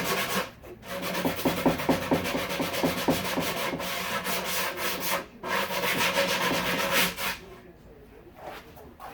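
Wood being sanded, a steady rasping scrub that pauses briefly a couple of times and dies down for the last second or two.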